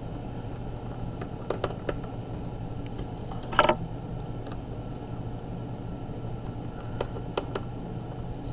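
Small sharp clicks and taps of a screwdriver and loose screws against the laptop's bottom cover as the Phillips screws are backed out, with one louder brief rattle about three and a half seconds in. A low steady hum runs underneath.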